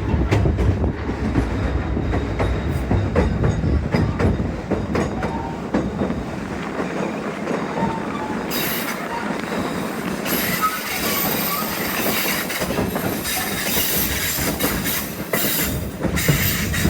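Narrow-gauge passenger car of the White Pass & Yukon Route railway running on the line, heard from aboard. Wheels rumble and clack over the rail joints, and from about halfway in a high metallic squeal of the wheels against the rails joins them.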